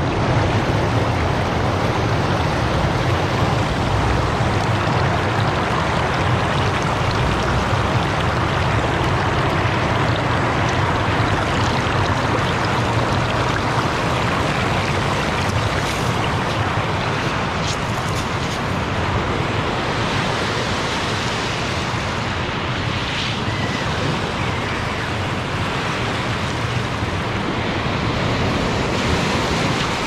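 Shallow river water rushing steadily over a small weir and across a pebble bed, heard close to the water.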